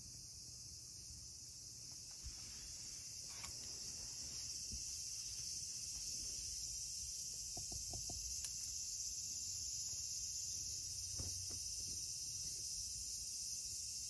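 A steady high-pitched hiss, like insects chirring, with a few small clicks about three and a half and eight and a half seconds in.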